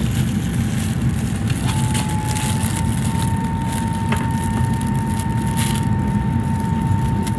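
Steady low rumble of a vehicle in motion, with a thin, steady high whine that comes in about two seconds in and holds.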